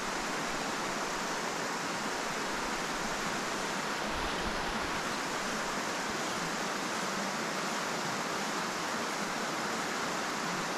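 Steady rushing of a river's current, an even hiss of flowing water that holds constant with no splashes or clicks standing out.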